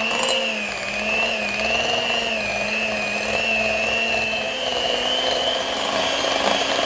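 Electric hand mixer running steadily, its beaters whipping cream cheese in a glass bowl: a constant motor whine that wavers a little in pitch.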